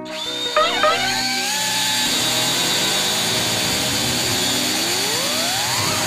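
Cordless power drill starting up with a couple of short blips, then running steadily with a high whine. A tone rises in pitch over the last two seconds.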